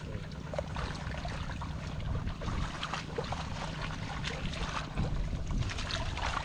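Shallow muddy water in a flooded rice field splashing and sloshing in short, irregular bursts as hands grope through mud and grass for fish, over a steady low wind rumble on the microphone.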